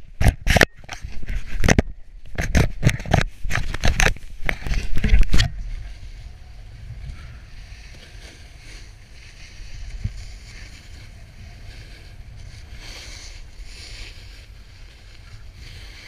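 Snowboard sliding on a snow piste, with wind on a pole-mounted action camera's microphone. For about the first five seconds there is loud, irregular buffeting and knocking. After that it settles to a steady low rush with a faint hiss above it.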